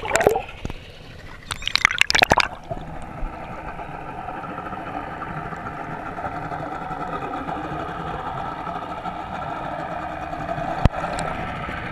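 Water splashing around the camera as it breaks the surface during the first couple of seconds. Then, with the camera underwater, a boat engine idling is heard through the water as a muffled, steady drone with a few steady tones. A single sharp click comes near the end.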